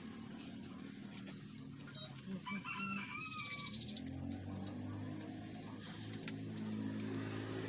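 A rooster crows once, a call of about a second that starts about two seconds in. A low steady hum sets in about four seconds in.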